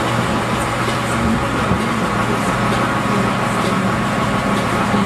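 Shrimp boat's engine running steadily: a constant low hum under an even rushing noise.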